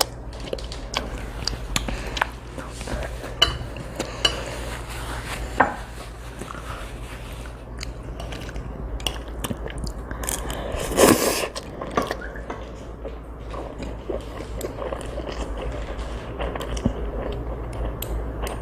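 A child eating chewy jjolmyeon noodles close to the microphone: chewing, with scattered clicks of utensils against a dish, over a steady low hum. A louder burst of noise comes about eleven seconds in.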